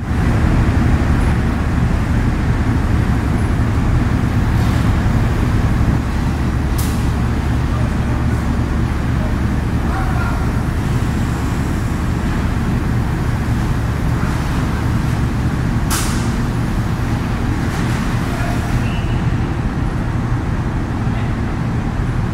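Diesel engine of a Volvo EC300DL hydraulic crawler excavator idling steadily, a loud low drone. Two short sharp metallic sounds cut in, one about 7 seconds in and a louder one about 16 seconds in.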